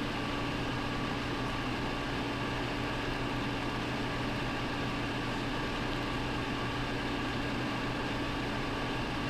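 Steady hum of a household appliance running, a low drone with several faint steady tones above it and no change in level.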